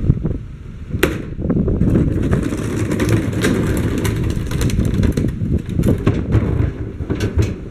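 A wheeled plastic recycling cart being rolled across asphalt, its hard wheels rumbling, with sharp knocks of plastic about a second in and near the end.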